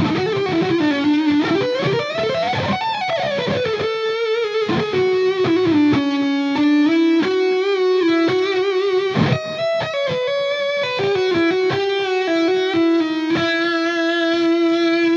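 Electric guitar played through a DiMarzio LiquiFire neck humbucker with an Alnico 5 magnet: a smooth, singing single-note lead line with string bends and vibrato. It ends on a long held note with wide vibrato.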